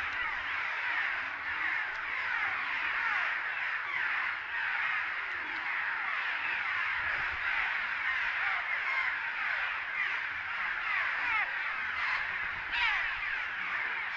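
Cliff swallow colony calling from its mud nests under a bridge: a continuous chorus of many short overlapping calls.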